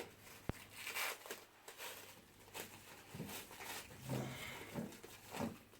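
Quiet eating sounds: scattered wet smacks and clicks of chewing and handling fufu with slimy ogbono soup.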